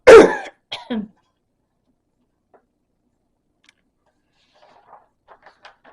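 A sudden loud burst from a person's voice right at the start, followed by a shorter voiced sound with a falling pitch. It then goes almost quiet, with a few faint clicks near the end.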